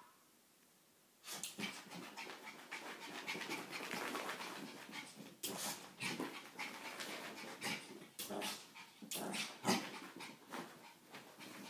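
Small shih tzu–pekingese puppy panting rapidly while it plays, starting about a second in, with a few louder sharp noises mixed in.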